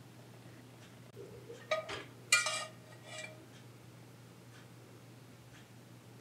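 Kitchenware clinking: four short ringing knocks, the loudest about two and a half seconds in, over a faint low hum.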